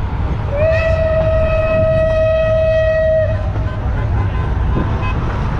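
A 1924 steam locomotive's whistle blows one long steady note of about three seconds, over the continuous low rumble of the train running.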